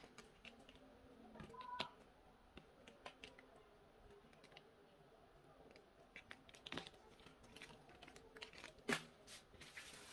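Faint crackling and scraping as paper is peeled off a hardened white cast and fingers pick crumbling bits from its edge, with scattered small clicks and two sharper ones, about two seconds in and near the end.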